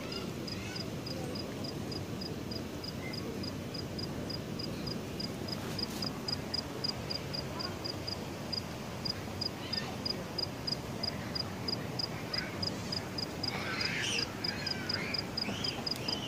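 A cricket chirping steadily at night, a short high chirp about three times a second, over a low background rumble. Near the end, ducks quack a few times.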